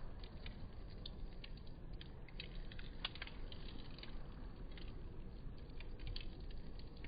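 Wood fire crackling: irregular small pops and snaps, several a second, over a steady low rumble.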